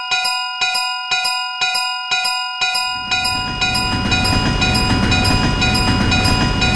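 Railroad crossing alarm ringing with regular clangs about twice a second. From about three seconds in, a train passes with a loud low rumble, heard under the still-ringing alarm.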